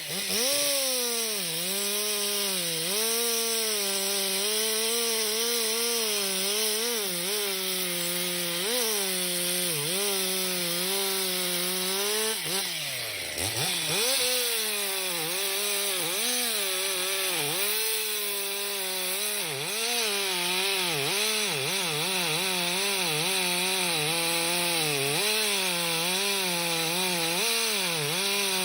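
Two-stroke chainsaw running at high revs through a cut, its pitch sagging and recovering again and again as the chain bogs under load. About thirteen seconds in, the engine drops steeply in pitch, then revs back up.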